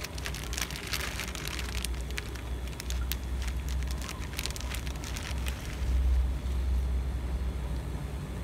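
Plastic bag crinkling and rustling as it is handled, a dense stream of small crackles for about five seconds that then stops. A low rumble runs underneath.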